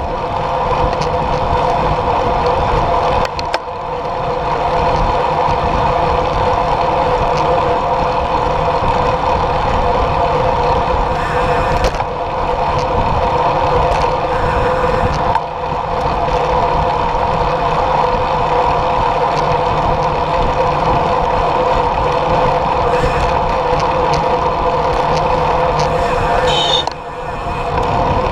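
Wind rush and tyre noise from a road bike riding at speed on asphalt, picked up by a camera mounted on the bike: a loud, steady drone with a constant hum, dipping briefly twice.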